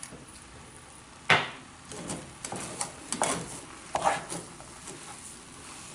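Spoon stirring chicken croquette filling in a pot: a sharp knock against the pot about a second in, then irregular scrapes and taps.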